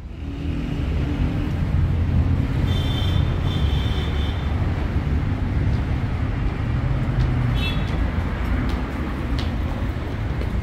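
Steady rumble of street traffic, with a couple of brief high chirps about three seconds in and again near eight seconds.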